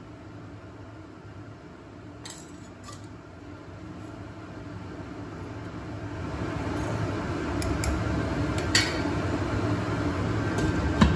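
Metal ladle stirring curry in a steel pan, clinking against the pan several times, loudest near the end. Underneath runs a steady rumbling noise that grows louder partway through.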